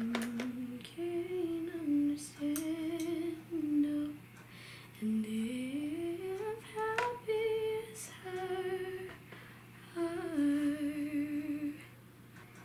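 A woman humming a wordless tune: held notes, with a slow upward slide about halfway through, stopping shortly before the end.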